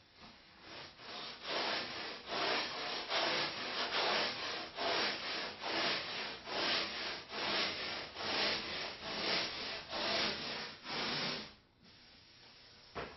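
Coarse 36-grit sandpaper on a long flexible sanding board scraping back and forth over a carved foam plug, about two strokes a second. The strokes stop about a second and a half before the end, followed by a single short knock.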